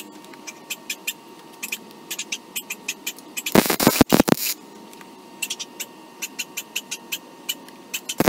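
MIG welder striking an arc on steel horseshoes, a short weld about a second long starting about three and a half seconds in, with a few brief breaks in it. A second weld starts right at the end.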